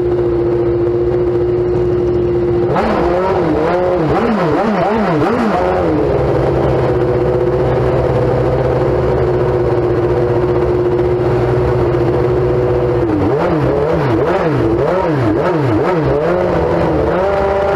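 Formula One racing car engine running at idle and blipped hard several times in quick succession in two spells, the revs rising and falling sharply, then held at a steady higher speed near the end.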